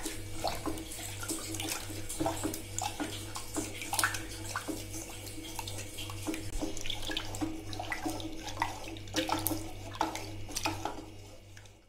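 Milk being stirred with a metal spoon in an aluminium pan while condensed milk is poured in: liquid swishing, with the spoon scraping and clicking irregularly against the pan. It fades away near the end.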